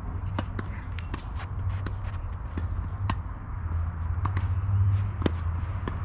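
Tennis balls struck by racquets in a doubles rally, starting with a serve: sharp pocks at irregular intervals a second or two apart, with fainter clicks of ball bounces and footsteps on the court. A steady low rumble runs underneath.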